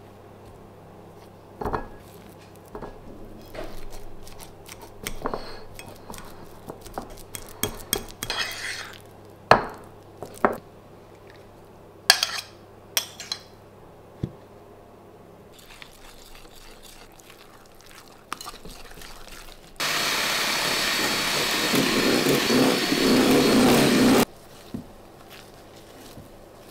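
Kitchen handling: scattered knocks and clicks of utensils and a squeeze bottle against a glass mixing bowl. About 20 s in, an electric mixer runs loud and steady for about four seconds, whipping aquafaba to a foam, then cuts off abruptly.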